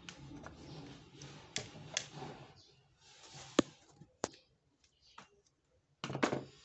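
Handling of an opened plastic radio case and small tools on a workbench: low rustling broken by several sharp clicks and taps, the sharpest about three and a half seconds in, then a short burst of handling noise near the end.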